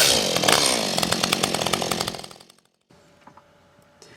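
Chainsaw engine running hard and then winding down, its pitch falling, with a fast clatter of the chain, fading out about two seconds in; quiet room tone follows.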